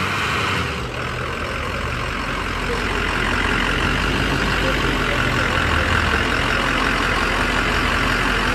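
Ford F-350 pickup's engine running at idle, a steady low rumble with an even hiss over it.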